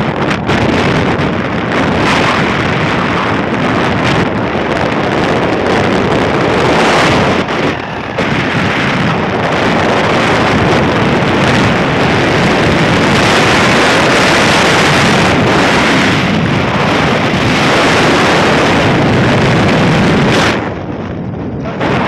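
Loud, steady rushing of a waterfall, with wind buffeting the microphone; the noise drops suddenly near the end.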